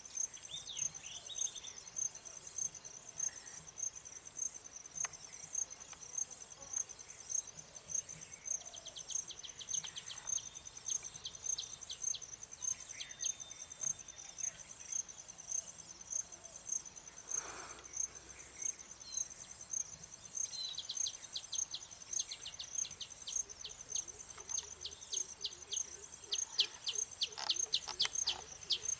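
A cricket chirping steadily, about two high chirps a second, over two bursts of fast, ticking chatter from baya weaver birds, the first about a third of the way in and the second, longer one through the last third.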